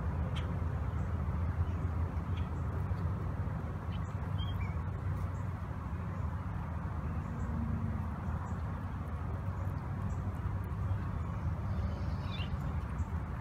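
Steady low outdoor rumble, with a few faint, short, high chirping calls about four seconds in and again near the end.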